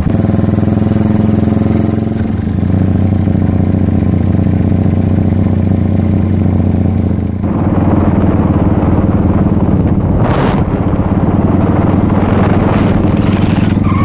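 Motorcycle engine running steadily while riding along a road, heard from on the bike. From about halfway a loud rushing noise of wind on the microphone joins it, with one brief gust about ten seconds in.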